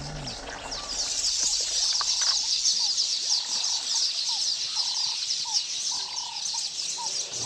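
Chorus of birds chirping: a dense run of quick high chirps, with short, clear lower notes repeated over it.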